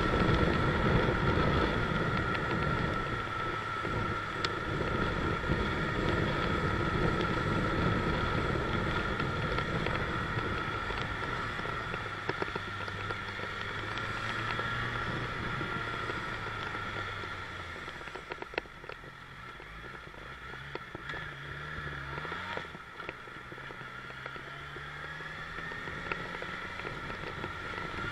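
Motorcycle engine running with wind rush on the microphone. It eases to a low note about two-thirds of the way through, then rises in short pulls as the bike picks up speed again.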